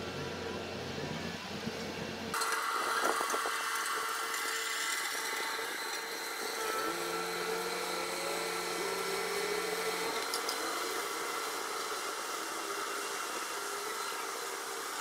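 Construction machinery running: a low steady engine hum that switches abruptly about two seconds in to a higher, whining machine noise, with a few tones sliding up and down near the middle.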